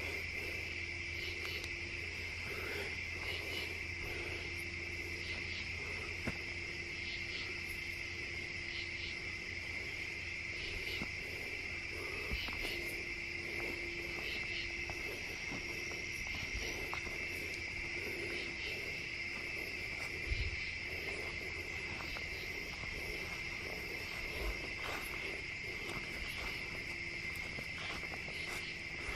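Steady night chorus of crickets, a continuous high trill, with a few soft knocks.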